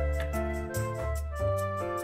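Instrumental background music with a bass line under held melody notes and a light, regular beat.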